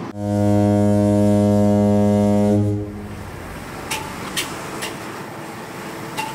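Ship's horn sounding one long, low, steady blast of nearly three seconds. A few sharp clicks follow.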